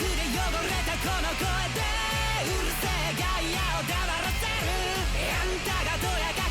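Japanese pop-rock anime ending song: a singer's voice over guitar and a steady driving beat.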